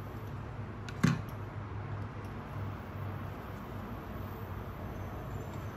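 A wooden spoon knocks once, sharply, about a second in, over a steady low hum.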